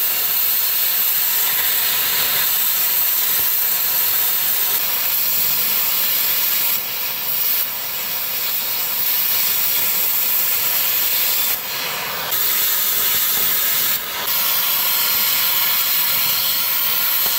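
Cutting torch hissing steadily as it burns the heads off rusted, seized exhaust manifold bolts, with a few brief dips in the hiss.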